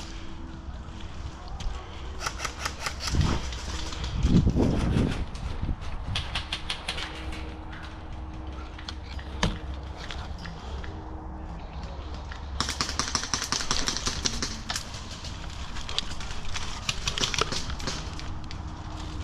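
Airsoft M4 rifle firing several rapid bursts of clicking shots. A loud low rumble comes about four seconds in, and a faint low hum runs underneath.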